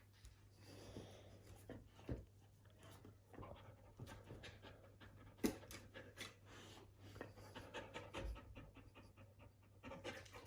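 Siberian husky panting softly, with scattered small clicks and one sharp tap about five and a half seconds in.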